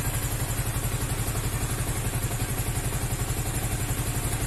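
Motor scooter engine idling with a steady, fast, even putter.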